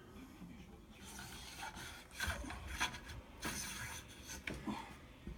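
Cleaning rod with two cloth patches being worked through an AR-15 rifle barrel, the patches rubbing against the bore in a few strokes; the doubled patch makes a tight fit.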